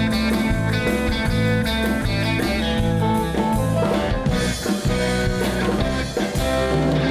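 Live rock band playing 1960s California surf music: twangy electric guitar over bass and a drum kit keeping a driving beat, with no vocals.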